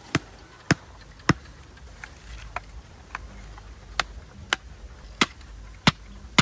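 Axe striking a wooden stake planted in the ground: about eleven sharp knocks at a steady pace of roughly two a second, some lighter than others.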